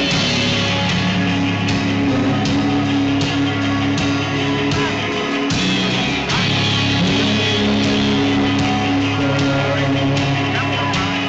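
A rock band playing live: electric guitars and a drum kit with cymbals, loud and steady, with no break in the music.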